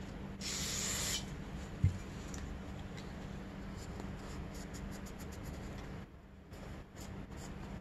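A short hiss of aerosol cleaner sprayed through its straw onto a paper shop towel, lasting under a second, followed by one sharp knock, the loudest sound. Then soft rubbing and handling as the towel wipes the carburetor body.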